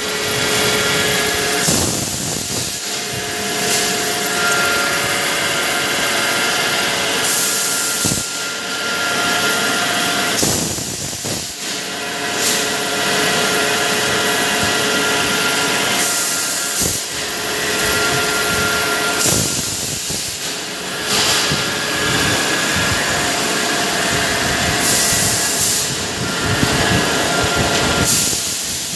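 Tube mill machinery running: a continuous loud mechanical din carrying a few steady tones, with a harsher hiss that swells and falls every few seconds.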